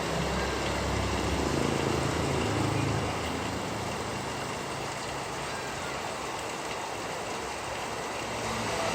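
Steady rain hiss with the low hum of a passing motor vehicle, louder in the first three seconds and again near the end.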